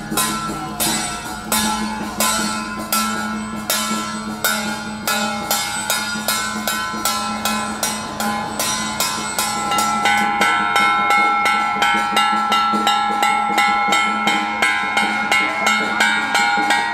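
Hand-held brass processional gongs struck in a steady beat, about two or three strokes a second. Each stroke rings on, and the ringing grows louder about ten seconds in.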